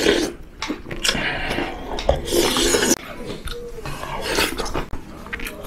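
Mukbang eating sounds: loud slurping and chewing of hangover soup with bean sprouts, with a metal spoon clinking and scraping in an earthenware bowl. The longest slurp comes about halfway through.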